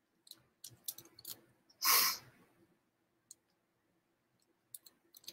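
Squeegee working ink across a silk screen transfer on a tea towel: scattered small clicks and taps, with one short scraping stroke about two seconds in.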